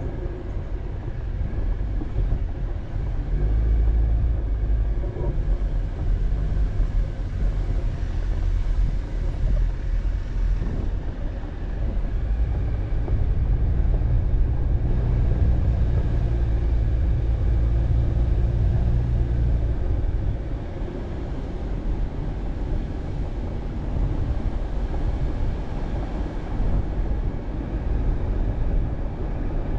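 Vehicle driving on a dirt road: a steady low rumble of engine and tyres, easing slightly about two-thirds of the way through.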